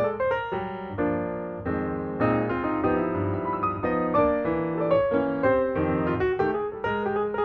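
Background piano music, a flowing melody of quick notes over chords.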